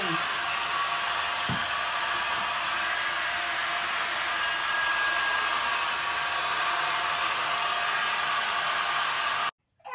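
Handheld hair dryer blowing steadily on wet hair, with a faint whine over the rush of air. It stops abruptly near the end.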